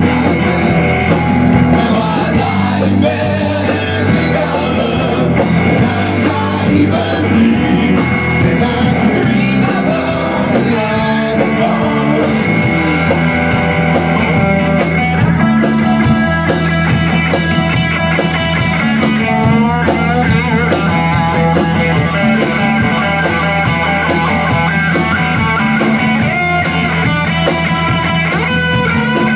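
Rock band playing live: distorted electric guitar, bass guitar and drum kit together in a steady rock groove.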